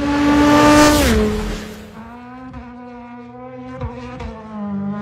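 A car passing at speed: its engine note builds and is loudest about a second in, then drops sharply in pitch as it goes by. A quieter engine note then carries on, wavering slightly in pitch.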